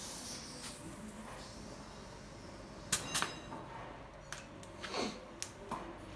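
Metal fittings of a compression tester clicking as its hose and adapter are handled on a diesel engine: a cluster of sharp clicks with a faint metallic ring about three seconds in, and a few lighter clicks around five seconds.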